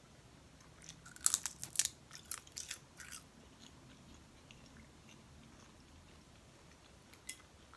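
Close-up biting and chewing of a giant water bug's wing: a run of crisp crunches starting about a second in and lasting about two seconds, then one more crunch near the end.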